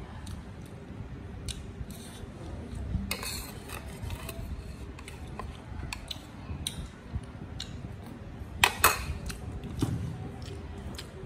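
Metal spoon clinking and scraping against a ceramic bowl and plate while scooping shrimp and rice, a scatter of light clicks with a longer scrape a few seconds in and the sharpest clinks about nine seconds in.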